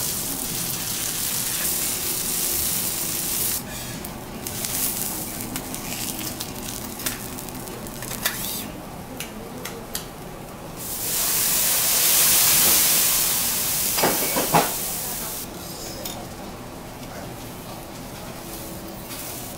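Wagyu steak sizzling on a teppanyaki steel griddle, with metal spatulas clicking against the plate. About eleven seconds in, the hiss swells into a loud rush for a few seconds as liquor is poured over the steak and flambéed, with a few sharp clinks near its end.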